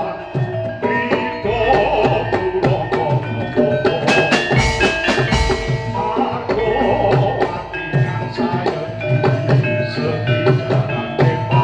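Javanese gamelan music: hand-drum (kendang) strokes over ringing metallophone notes, with a cymbal crash about four seconds in.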